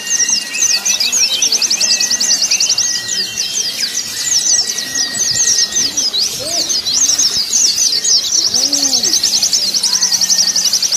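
Many white-eyes (pleci) singing at once: a dense, continuous chorus of rapid, high twittering trills, as in a crowded songbird contest. Steady whistled notes and a few low rising-and-falling calls sound underneath.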